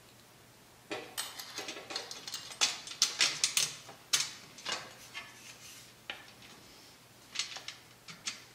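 Light metallic clicks and clinks of a hex key and an aluminium corner bracket against 2020 aluminium extrusion as the bracket is screwed on. A quick run of clicks starts about a second in, and a few more come near the end.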